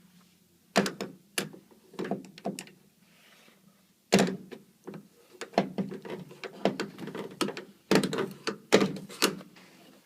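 A run of knocks, clunks and rattles from hard parts being handled on a front-load washing machine. A few come about a second in, then they come thick and fast from about four seconds on.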